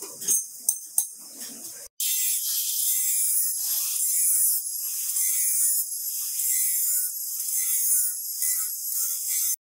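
A few sharp metal clinks, then after about two seconds an angle grinder's abrasive cut-off disc biting into rusty steel: a continuous high-pitched grinding hiss that wavers slightly in pitch as the disc loads.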